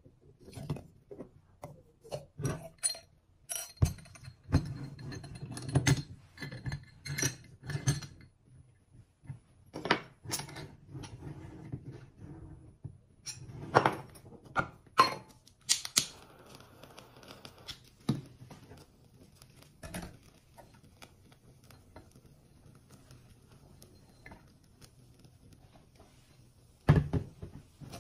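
Irregular metallic clinks, clacks and knocks as the cast-metal parts of a mini pressure popcorn cannon are handled: the lid clamped shut and the pot set into its stand.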